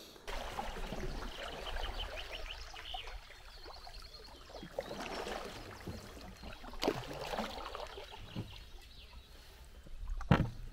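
Kayak paddling: water splashing and trickling off the paddle with each stroke, with a sharp knock near the end.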